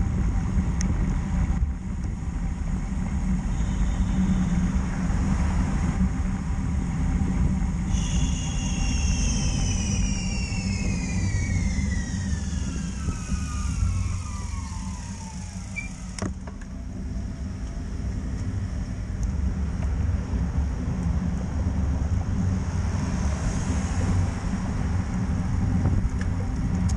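Steady wind rush and road noise while cycling, heaviest in the low end. About a third of the way in, a high two-toned whine starts and falls steadily in pitch for several seconds, then stops with a click.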